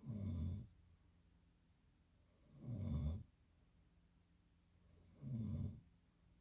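Snoring: three short snores, each about half a second long, coming about every two and a half seconds.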